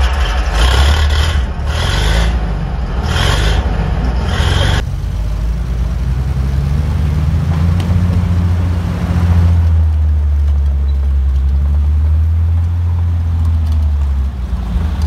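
Heavy WWII German tracked armoured vehicle's engine running with a deep rumble, its pitch rising and falling as it revs. For the first five seconds a higher scraping noise pulses about once a second, and it stops abruptly about five seconds in.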